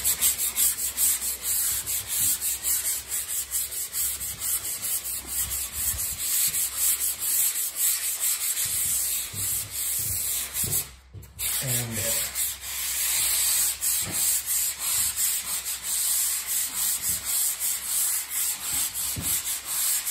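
Hand sanding block rubbing dried joint compound on a drywall inside-corner joint, quick back-and-forth scraping strokes with a hissy, rasping sound. The strokes stop briefly about eleven seconds in, then carry on.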